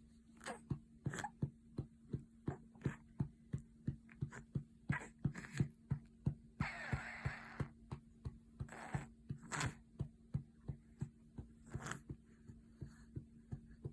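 Hand patting a baby's back to bring up a burp: soft, even pats about two and a half a second, with a short rustling noise about seven seconds in and a steady low hum underneath.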